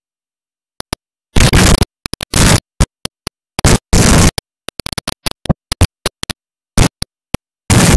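Top Fuel dragster's supercharged nitromethane V8 running at very close range, so loud that the recording overloads and breaks up into choppy bursts of distorted noise with sudden dropouts between them. It cuts in about a second in.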